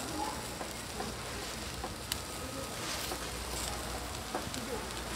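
Skewered abalone and turban shells sizzling on a flat steel griddle: a steady frying hiss, with a couple of sharp clicks about two and three seconds in.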